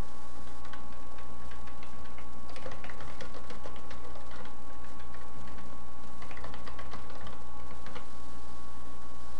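Computer keyboard typing in irregular runs of keystrokes, over a steady low hum and a faint constant high tone.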